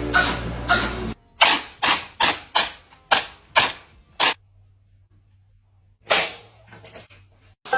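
Cats sneezing in quick runs of short, sharp sneezes, about three a second. After a pause of about a second and a half comes one more sneeze, followed by a few fainter ones.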